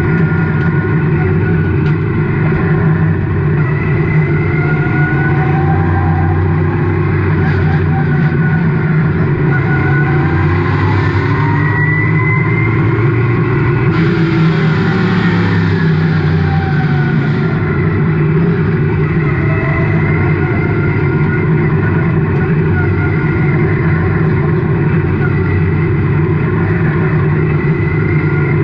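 Race car engine running at a steady pace, heard from inside the caged cockpit. About halfway through, the engines of other cars slide up and down in pitch as they pass close by, along with a spell of rushing hiss.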